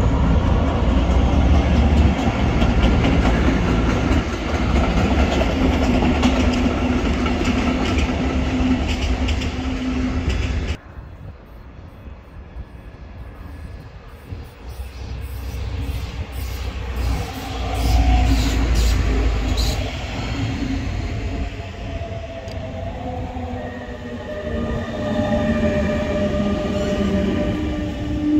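Train running on the rails: a loud rumble of wheels and running gear with steady whining tones. About eleven seconds in the sound cuts abruptly to a quieter train, again with several steady whining tones.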